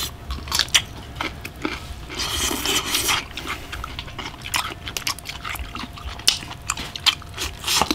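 Close-up mouth sounds of a man eating grilled pig intestine with his hands: wet smacking and sharp clicking as he chews and sucks on it, with a longer slurp about two seconds in.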